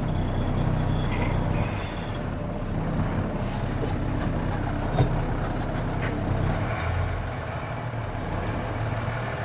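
Mercedes-Benz Unimog U2450 6x6 truck's diesel engine running steadily at low revs as it crawls over off-road terrain, with a single sharp knock about five seconds in.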